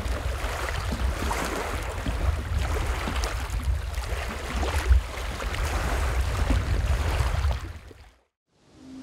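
Boat under way on a river: rushing wind and water noise over a deep rumble, fading out near the end.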